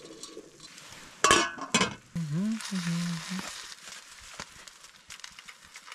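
Food sizzling on top of a small hot-tent wood stove, with small crackles. About a second in come two loud, sharp noisy bursts, followed by a brief wordless voice sound.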